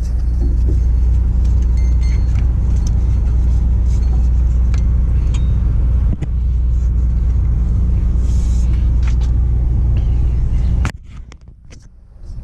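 Steady low rumble of an idling engine, with a few faint clicks of metal handling over it, cutting off sharply about eleven seconds in.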